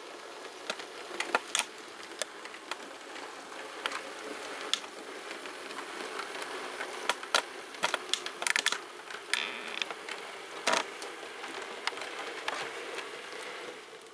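A 00 gauge model train running on the track: a steady buzzing motor whir with irregular clicks and clacks from the wheels passing over rail joints and pointwork, a cluster of them about two-thirds of the way through.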